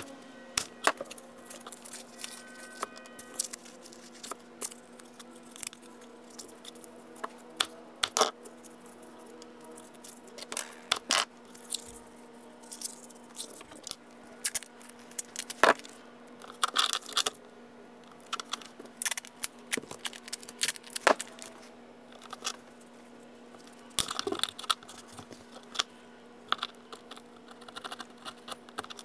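Irregular clicks, clinks and scrapes of small metal parts being handled on a steel workbench, over a steady low hum.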